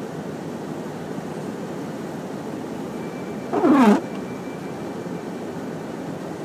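Steady road and engine noise inside a car crawling along a snow-covered road. About halfway through comes one short squeak of about half a second, falling in pitch.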